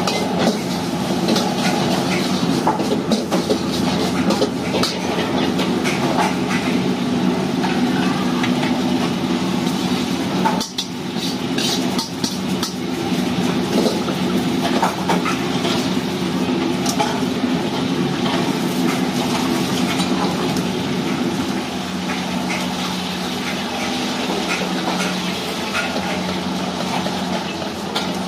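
A metal spatula and ladle scrape and clank against a wok again and again over a steady roar and hum from the gas wok burner and the exhaust fan above it.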